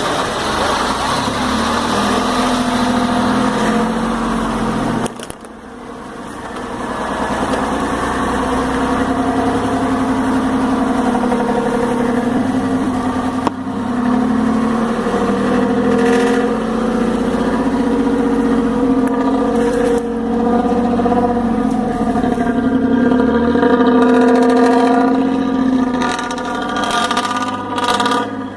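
Exhaust of a DINA bus or truck's diesel engine running under load, its note shifting with the revs. It drops off sharply about five seconds in, then builds back up.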